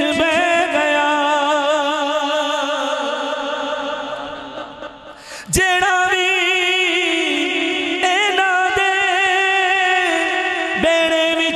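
A man sings a devotional Punjabi manqabat into a microphone, drawing out long held notes with a wide vibrato. About four seconds in the voice fades away, a sharp click sounds, and he comes back in with another long wavering note.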